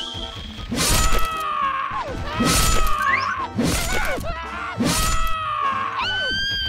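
Cartoon fight sound effects over background music: four sharp hits about a second apart, each followed by a pitched sound that holds and then drops away.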